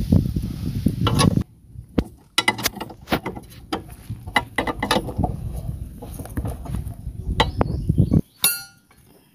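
Hand tools clinking and knocking on the metal suspension parts of a small truck during repair: a run of irregular sharp clicks and knocks over a low handling rumble, with a brief high ringing note near the end.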